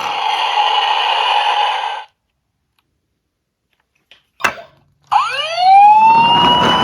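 Emergency siren sounding with several steady tones, cutting off about two seconds in. After a silent gap and a brief knock, a siren wail starts about five seconds in, rising in pitch and starting to fall near the end.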